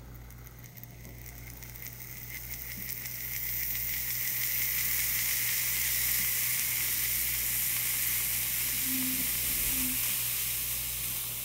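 Concentrated sulfuric acid dehydrating table sugar in a glass beaker: a hiss of escaping steam and gases that builds over the first few seconds, then holds steady as the sugar chars to carbon in the hot, exothermic reaction.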